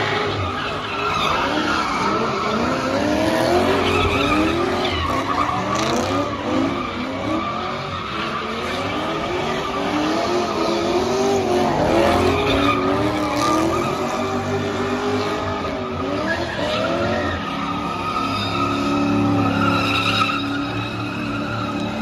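Car tyres squealing continuously, the pitch wavering up and down, over the sound of a running engine.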